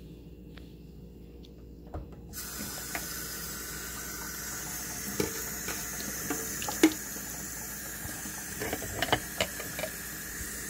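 A water tap is turned on about two seconds in and runs steadily into a sink, with scattered knocks and clatters of things being handled; the sharpest knock comes about seven seconds in.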